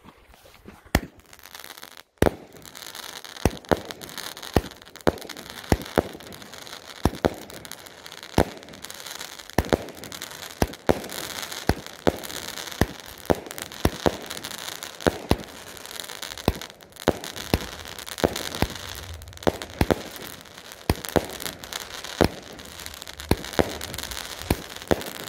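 True North Fireworks 'Two-Four' cake firing: a rapid string of shots, more than one a second, over continuous crackling from its crackling tails and crackling willow bursts.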